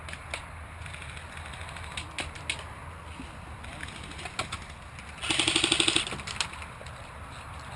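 Airsoft gunfire: scattered single shots, then about five seconds in a short full-auto burst of about a dozen rapid shots.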